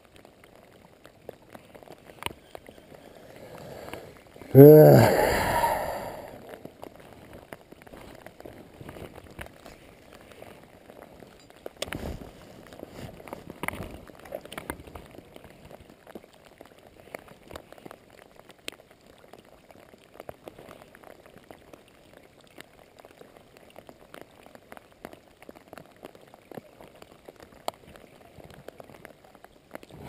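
Steady patter of rain, with drops ticking on the camera and on a rain jacket. About four seconds in, a man makes a short loud vocal sound, like a sigh or grunt.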